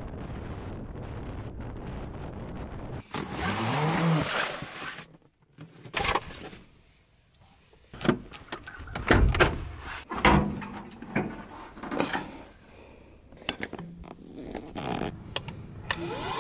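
Steady road and wind noise from a van driving on a highway. After about three seconds it breaks off into a brief sound that swoops up and down, then a long string of separate clicks and knocks from handling things.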